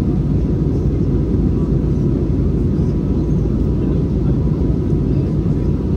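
Steady low rumble of an airliner's engines and airflow heard from inside the passenger cabin, with a faint steady whine above it.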